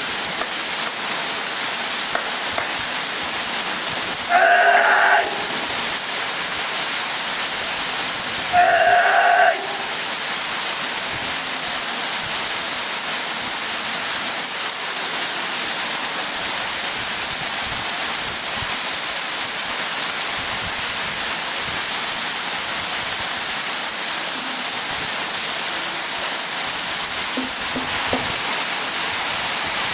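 Waterfall pouring steadily, a loud, even rush. Twice, at about four and about nine seconds in, a person gives a loud held kiai shout of about a second, the spirit shout of waterfall purification practice.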